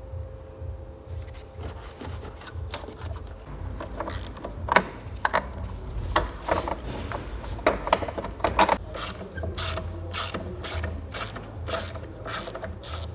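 Hand tools working on a car in a workshop: a ratchet wrench clicking through repeated strokes, with scattered metallic knocks. The clicks become a regular run of about two or three a second in the second half.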